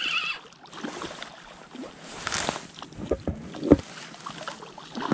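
Water splashing and knocks against a small boat while a hooked pike is fought alongside, with one sharp knock, the loudest sound, a little past halfway.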